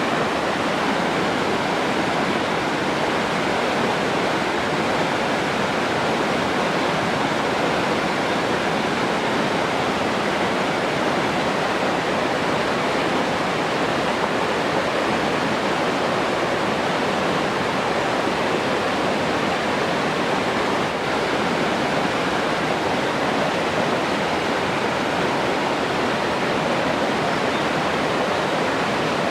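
Steady rush of flowing water, an even, unbroken noise with no separate splashes or drips standing out.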